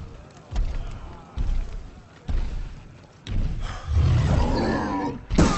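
Heavy booming footsteps of a film stone giant approaching, about one a second, then a long deep growling roar from about three and a half seconds in, ending in a sharp crash near the end.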